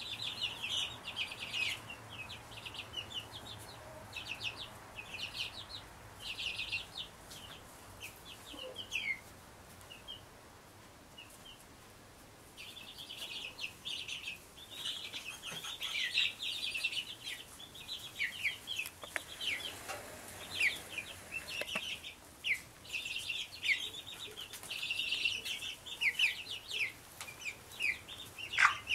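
A flock of young Brahma chicks peeping: a dense chorus of short, high cheeps, some sliding down in pitch, which thins out for a few seconds near the middle before picking up again.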